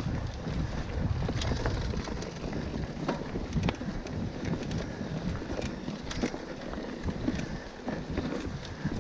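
Mountain bike riding down a dirt woodland trail: wind rumbling on the camera microphone over the rolling tyres, with scattered sharp clicks and rattles as the bike runs over the rough ground.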